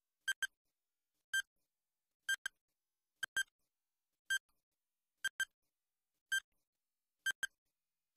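Countdown-timer sound effect: short, high electronic ticks about once a second, alternating a quick double tick and a single one as the seconds count down.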